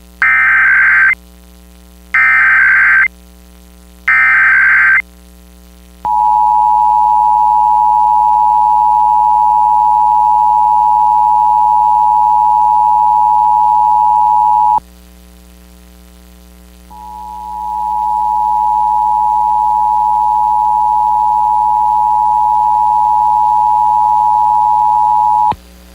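Emergency Alert System test tones: three short buzzy SAME header data bursts, one a second, then the steady two-tone attention signal for about nine seconds. After a short gap a second attention tone fades in and holds for about eight seconds.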